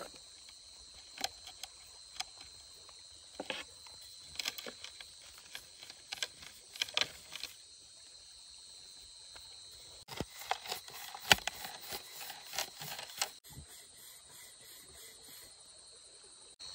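A steady high insect trill, like crickets, with scattered sharp clicks and knocks over it, more of them from about ten seconds in.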